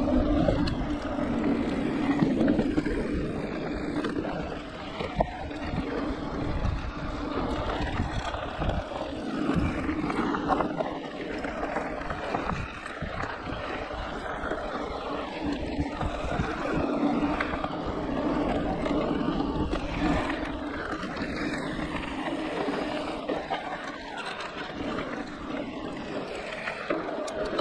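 Riding noise of a Giant Reign E+ e-mountain bike on a dirt and gravel trail: tyres rolling over the ground, frequent small knocks and rattles from the bike over bumps, and wind on the microphone. A steady hum from the Yamaha-based drive motor runs underneath, swelling and fading with the pedalling.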